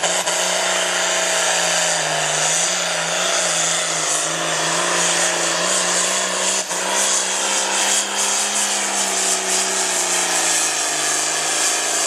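International Harvester farm tractor's diesel engine running at full power under load while pulling a weight-transfer sled, with a high whine over a steady engine note that eases slightly near the end.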